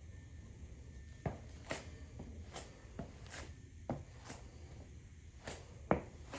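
A series of light knocks and scuffs, about two a second, starting about a second in.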